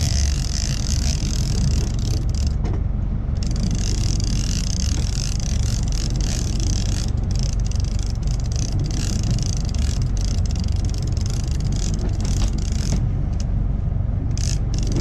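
Boat engine running steadily, with a high hiss of wind and water over it that drops out briefly twice.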